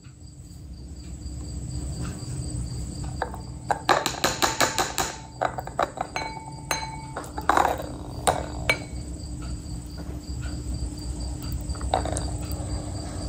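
A quick run of light clinks and taps on a small ceramic dish of soft dog food, about four to five seconds in, with a few more scattered later, over a low steady hum.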